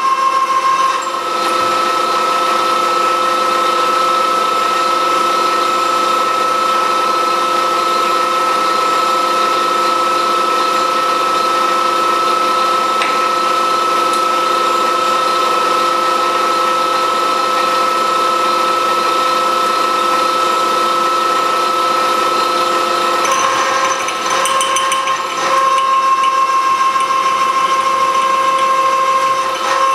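Milling machine spindle running steadily with a drill bit, drilling holes in a dividing plate held on a dividing head. Its whine rises in pitch about a second in and drops back near the end, with a few clicks there.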